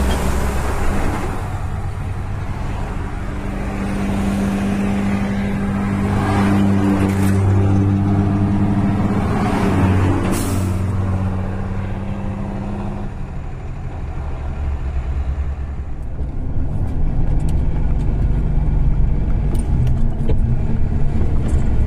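Volkswagen Constellation 19.330 truck's diesel engine running under way, heard inside the cab over road and wind noise. The steady engine tone eases off a little past halfway, leaving a lower rumble. A few whooshes of passing traffic come through near the start.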